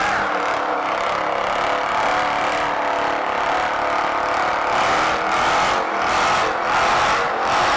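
Dodge Challenger doing a burnout: the engine is held at high revs while the spinning rear tyres squeal against the pavement, a loud, steady din with wavering squeal tones.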